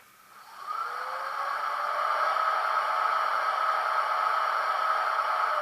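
Sound decoder of a model ST43 diesel locomotive playing a whirring machinery sound through its small loudspeaker. It builds up with a rising pitch about half a second in, then holds steady and loud.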